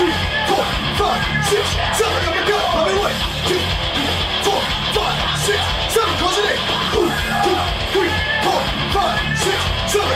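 Hard rock music with yelled vocals over electric guitar, bass and drums, playing at a steady, even loudness.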